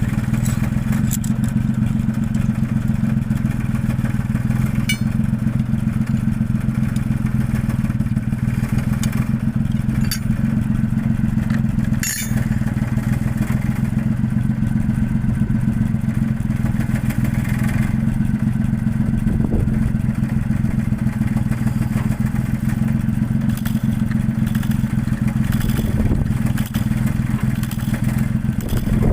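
Mitsubishi Fuso 6M70 straight-six diesel truck engine idling steadily, its injectors freshly cleaned, with one sharp click about twelve seconds in.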